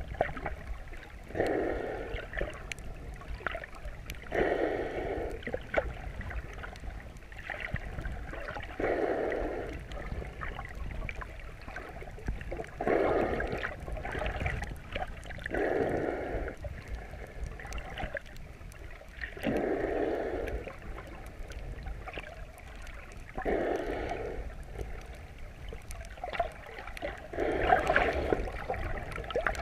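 A swimmer breathing underwater, heard through a chest-mounted GoPro's waterproof housing: slow, regular breaths about every three to four seconds over a low, steady underwater wash.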